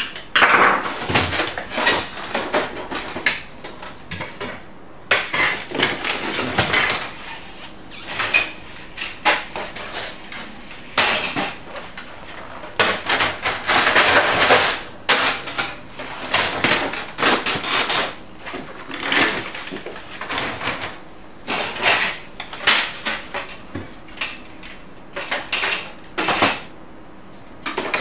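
Irregular clicks, knocks and rattles of hard plastic as the covers and parts of an HP LaserJet P3005 laser printer are handled and fitted, in clusters with short pauses between them.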